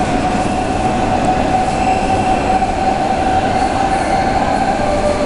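DB class 474 S-Bahn electric train standing at the platform, its onboard electrical equipment giving a steady whine over a continuous rumble. Just before the end the whine shifts to a lower tone, with a second higher tone joining it.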